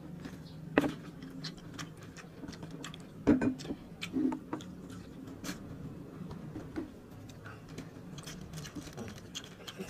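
Eating sounds at the table: chewing with frequent small clicks and crackles of crispy fried danggit and food being picked at by hand, with a few louder ticks near the start and about three to four seconds in. A low steady hum lies under it.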